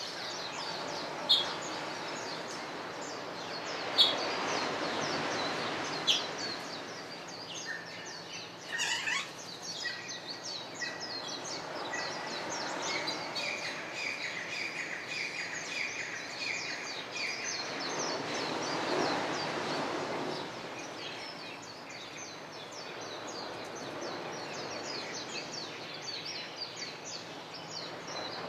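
Many birds chirping and calling in a dawn chorus, with a few loud sharp chirps in the first seconds and a rapid trill around the middle. Underneath is the soft rush of small waves washing onto a sandy beach, swelling twice.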